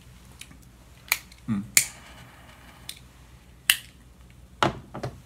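About six sharp, separate clicks and smacks, unevenly spaced, from a cigarillo being handled and put between the lips. One is followed by a brief hiss.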